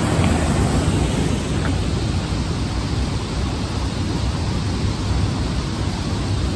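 Steady rushing of a fast-flowing creek pouring over a small waterfall, with wind on the microphone.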